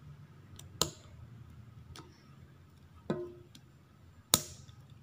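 A few sharp clicks and snaps of hard plastic as fingers work open an LOL Surprise toy ball, the loudest near the end.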